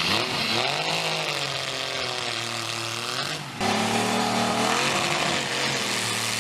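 Large chainsaw engine running under load, its pitch dipping and recovering as the saw cuts through a log. About three and a half seconds in, the sound switches abruptly to another, louder engine running at a steadier pitch.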